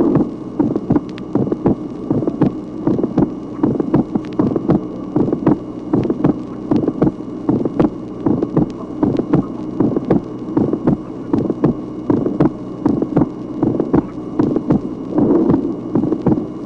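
Recorded human heartbeat, heard through a stethoscope microphone, beating regularly with several early systolic ejection clicks in each beat. The clicks come from blood arriving abruptly in a dilated aorta or pulmonary artery. A steady hum runs beneath.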